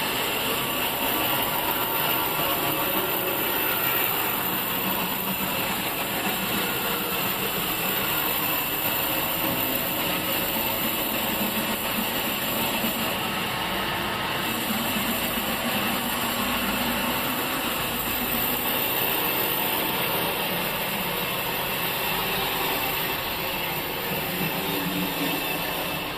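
Sawmill machinery running steadily: a continuous mechanical noise with no breaks or distinct knocks.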